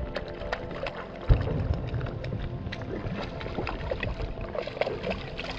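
River water splashing close by as a hooked trout is played and brought to the net, with many scattered small clicks; a louder, low rush of splashing starts about a second in.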